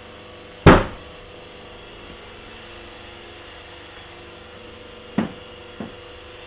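A single loud, sharp pop as the hydrogen–air mixture in an open-bottomed plastic bag ignites: a fairly convincing bang, though the bag then catches fire and burns rather than exploding fully. Two much fainter knocks follow near the end.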